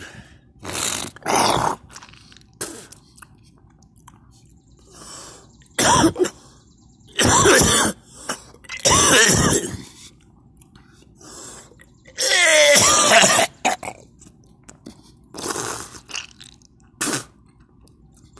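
A person coughing hard in repeated fits and retching just after vomiting. About ten separate bursts come with pauses between them, and the longest heaving, strained ones fall in the middle.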